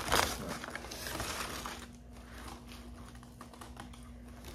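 Brown paper takeout bag and food packaging rustling and crinkling as food is taken out, with light clicky taps. It is loudest in the first half-second, then softer scattered crinkles.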